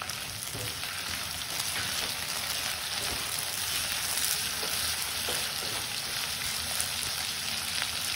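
Chopped vegetables and freshly added tomatoes sizzling steadily in hot mustard oil in a kadhai, stirred with a silicone spatula.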